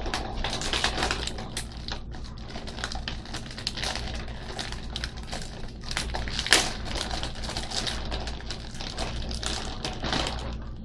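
Plastic wrapper of a two-cookie snack pack crinkling and crackling as it is worked and torn open by hand, a dense run of sharp crackles with one louder snap about six and a half seconds in.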